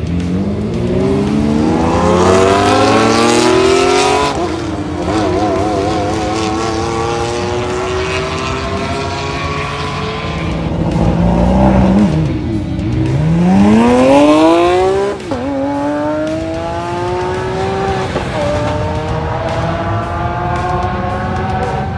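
Supercar engines at full throttle accelerating hard, the pitch climbing through the gears with upshifts about four and fifteen seconds in, and a fresh run of rising revs starting around twelve seconds in.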